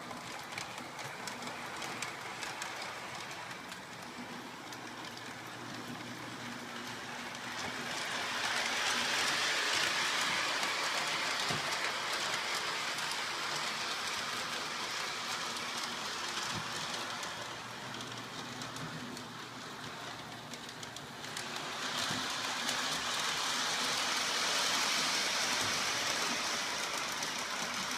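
Model train running along its track, a steady whirring rumble of wheels and motor on the rails. It swells louder twice, once in the middle and again near the end, as the train comes closer.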